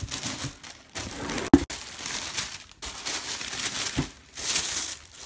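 Tissue paper rustling and crinkling as a cardboard shoebox is opened and the wrapping is pulled back, in several bursts. There is a sharp tap about a second and a half in and a smaller one near four seconds.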